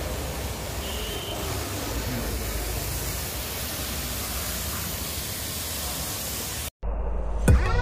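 Pressure washer jet spraying water onto a car's body and windows, a steady hiss. Near the end it cuts off abruptly and electronic music starts.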